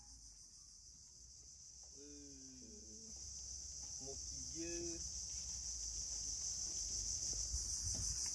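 Steady high-pitched insect chorus, swelling louder through the second half.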